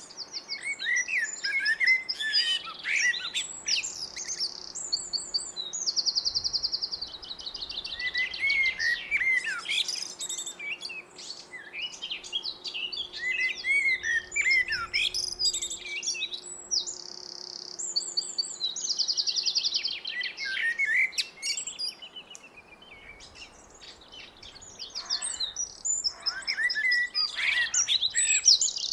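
Blackbird singing: a run of separate song phrases of warbling whistled notes, several carrying a fast, high twittering trill, with short pauses between phrases.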